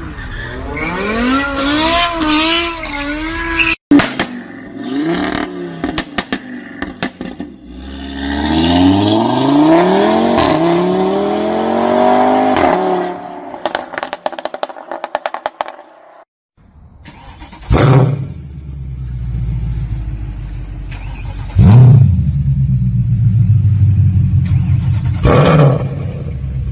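Loud performance-car exhausts in quick succession. A black BMW sedan revs up and down several times. Then a car accelerates hard with rising engine pitch broken by a gear change. Last, a Mercedes C63 AMG's V8 is blipped three times in sharp, loud revs.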